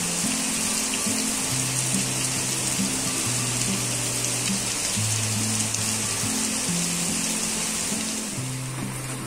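Steady rain falling, a constant hiss that drops away near the end, under soft background music of slow, held bass notes.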